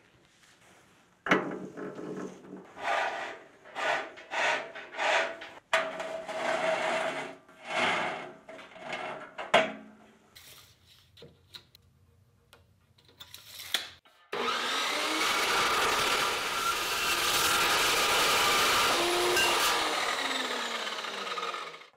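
Steel lift-equalizer cable rasping and scraping in a series of uneven strokes as it is pulled through the lift's overhead beam. About 14 seconds in, a metal-cutting chop saw starts suddenly and runs steadily, cutting a short length of 1/2-inch Schedule 40 steel pipe held in its vise, until just before the end.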